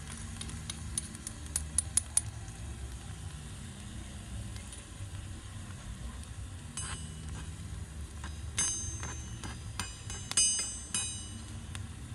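A small metal fork tapping quickly against a tiny metal spoon about seven times to knock food off into a miniature wok, over a low sizzle of food frying in oil. Later come several sharp ringing clinks.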